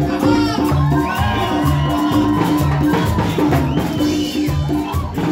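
Live marimba ensemble music: wooden marimba over a steady repeating bass line, with congas and a drum kit keeping the beat.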